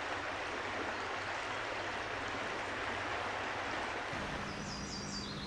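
Floodwater from the Salmon River pouring over a dip in its levee bank and flowing fast across the floodplain: a steady rushing of water. A few short high chirps near the end.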